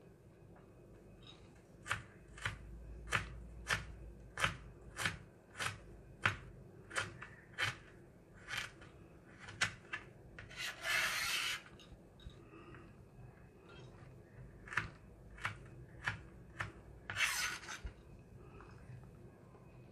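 A chef's knife slicing fresh ginger into thin strips on a plastic cutting board. Sharp knocks of the blade meeting the board come about every half second through the first half, then fewer and more spaced, with two longer scrapes, one near the middle and one near the end.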